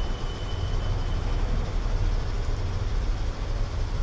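Low, steady rumble of a car creeping forward on asphalt, its engine and tyre noise played back slowed down, with a faint high tone for the first second and a half. No sharp pops or cracks yet.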